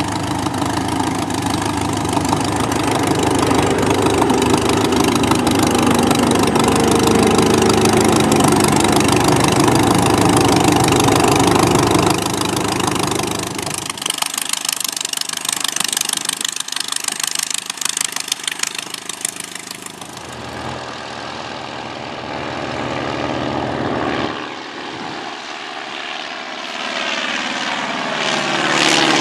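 Bücker Jungmann biplane's piston engine and propeller running close by on the ground, with changes in pitch as the power shifts. Later it is heard in flight, growing louder with a falling pitch as it passes overhead near the end.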